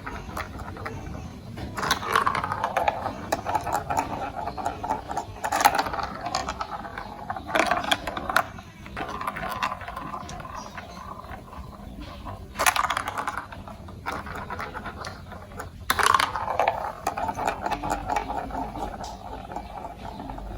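Marbles rolling and rattling along a plastic building-block marble track, with a sharp clack now and then as a marble drops or strikes the pieces.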